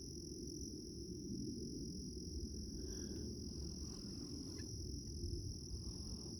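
Steady, unbroken high-pitched chorus of night-calling insects, over a low rumble.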